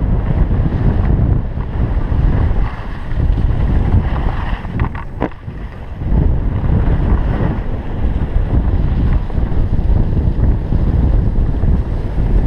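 Wind buffeting the microphone of a head-mounted action camera during a downhill ski run, with the skis sliding over packed snow underneath. The rush dips about five seconds in as the skier slows, then builds again.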